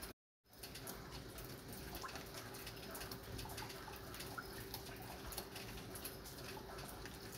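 Light rain falling: many small drop ticks over a soft steady hiss. The sound cuts out completely for about half a second just after the start.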